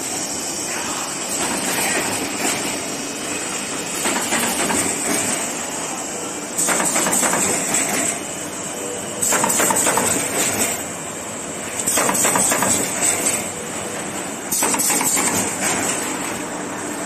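Automatic corrugated-box partition assembly machine running: a steady mechanical din. From about a third of the way in, louder stretches of rapid clicking come back about every two and a half seconds.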